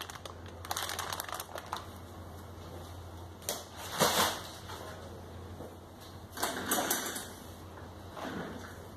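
Plastic cable packaging bags crinkling and rustling as a stack of them is handled and moved, with irregular bursts of rustling and one louder rustle about four seconds in.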